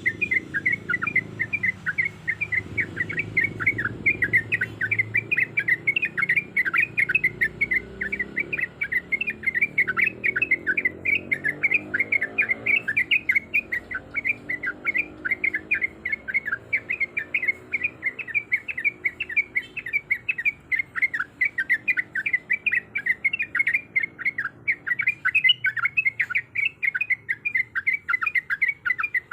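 Sooty-headed bulbul (trucuk) singing a long, rapid run of short repeated chirping notes, about three to four a second, without a break: the rolling 'ropel' song of a bird in full voice.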